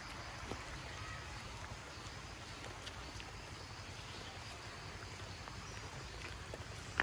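Steady rush of shallow water flowing along a narrow stone-lined stream channel, with a few faint clicks.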